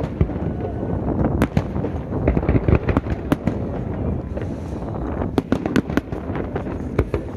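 Fireworks going off in a rapid, irregular series of sharp bangs and crackles over a continuous low rumble.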